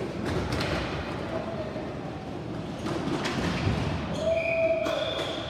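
Indoor ball hockey game: scattered knocks and thuds of sticks, ball and boards in a large echoing hall, with a brief held tone about four seconds in.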